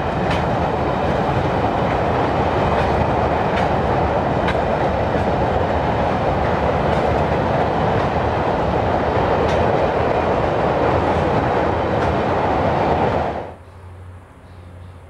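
Railway oil tank wagons rolling across a girder bridge: a loud, steady rumble of wheels on rail with occasional faint wheel clicks. Near the end it drops suddenly to a much quieter low background.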